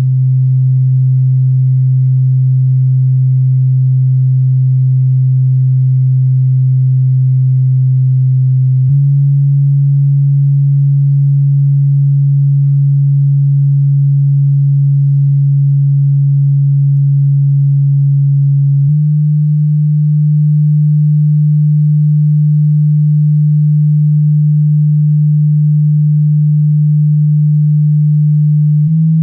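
MTX subwoofer playing steady low bass test tones, driven by a monoblock amplifier bridged into a 2-ohm load. The tone holds for about ten seconds at a time and steps up in pitch twice.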